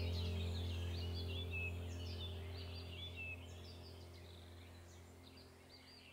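Background ambient soundtrack: a low sustained drone with a few steady tones above it, fading out slowly, under birdsong made of many short, quick chirps.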